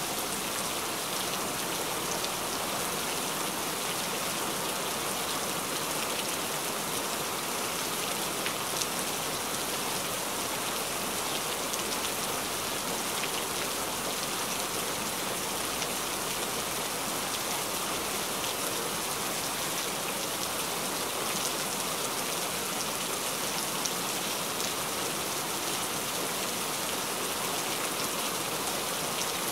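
Steady rain: an even hiss with scattered faint ticks of single drops, unchanging throughout.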